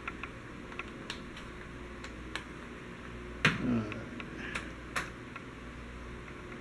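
Scattered clicks and taps of a plastic wireless computer keyboard being handled and its keys pressed, about half a dozen in all, with a sharper knock about three and a half seconds in.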